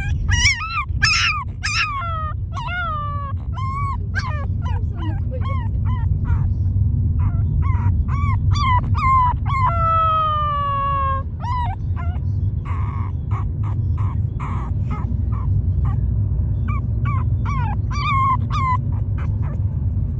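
Two-month-old long-coat Chihuahua puppy crying in a moving car: a rapid string of high-pitched yelps and whimpers, each dropping in pitch, with one longer drawn-out howl about ten seconds in. The cries fall off for a few seconds and then start again. A steady low rumble of car road noise runs underneath.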